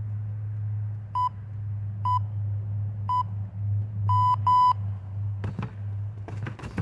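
An electronic timer beeps three short beeps about a second apart, then two longer ones close together. A few sharp knocks of strikes landing on a freestanding punching bag follow in the last couple of seconds, over a steady low hum.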